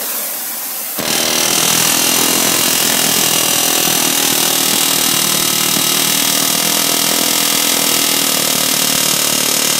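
Pneumatic rivet hammer driving a red-hot steel rivet into a Ford Model A frame crossmember, hammering loud and without a break. It starts about a second in, after a short hiss from the torch flame.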